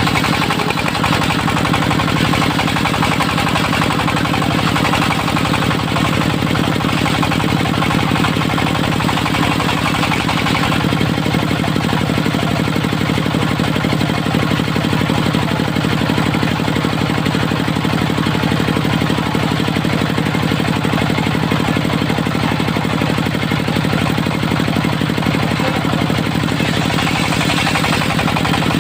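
Dongfeng diesel engine powering a mobile circular sawmill, running steadily with a slight change in its sound about ten seconds in.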